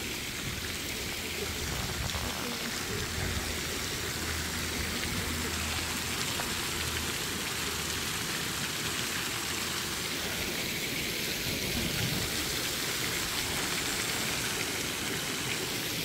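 Fountain water jets splashing steadily into their pool.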